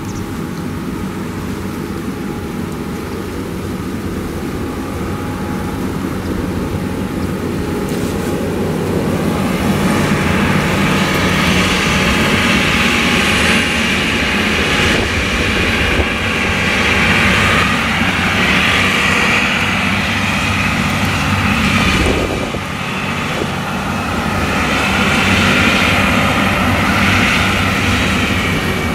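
Claas Lexion 760 TT combine harvester running under load while harvesting maize with its nine-row Geringhoff corn header: a steady engine and machinery drone that grows louder from about ten seconds in as the machine comes close, with a brief drop just after twenty-two seconds.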